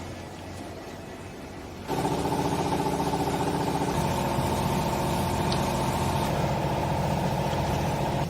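Hydraulic vertical baler's pump and motor running under a low hum, then working hard and much louder from about two seconds in, with a change in pitch at about four seconds, before cutting off suddenly near the end.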